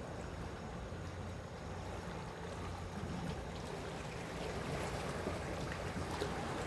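Sea waves washing on the shore at night, a steady rushing wash with a low steady hum underneath and a few faint clicks in the second half.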